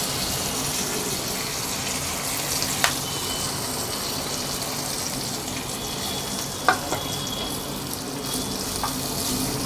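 Hot oil sizzling in a nonstick frying pan as cumin seeds, curry leaves and chopped ginger fry, the tempering step of a spiced potato filling. A steady hiss with a few sharp clicks.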